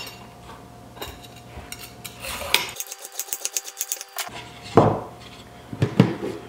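Handheld vegetable peeler scraping down a carrot over a wooden cutting board in quick, evenly spaced strokes, then a couple of louder knocks as the peeler is set on the counter and the board is picked up.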